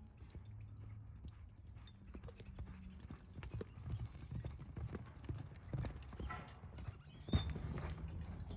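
Hoofbeats of a horse loping on soft arena dirt, a run of irregular dull thuds, with a sharp knock about seven seconds in.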